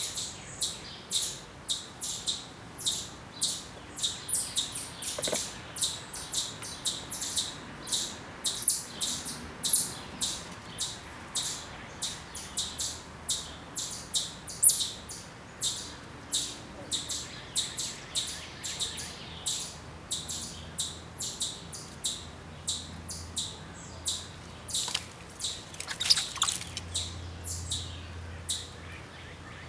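A small animal chirping steadily: short, high chirps repeating about two or three times a second.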